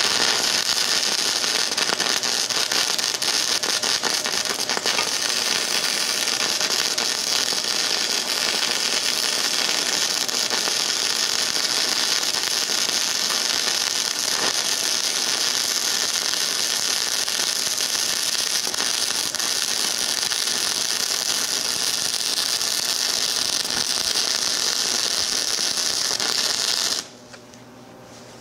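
Harbor Freight 90-amp flux-core wire-feed welder, converted to DC electrode negative, running a continuous arc at wire feed setting 5 and maximum amperage: a steady crackling sizzle that cuts off abruptly near the end as the arc is broken.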